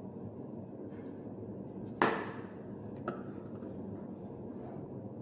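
A sharp knock of a kitchen item on a hard surface about two seconds in, then a lighter click about a second later, over a steady low hum.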